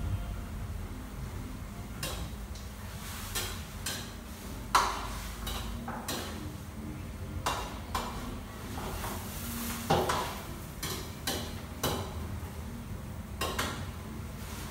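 Wok cooking: a metal ladle clanks and scrapes against a wok in irregular sharp strikes. The two loudest come about five and ten seconds in. Under them runs a steady low rumble.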